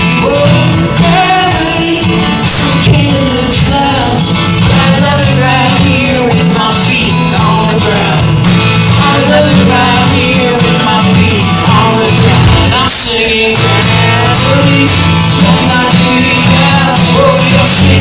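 Acoustic guitar strummed with a male voice singing, played live through a PA system, with a short break in the strumming about two-thirds of the way through.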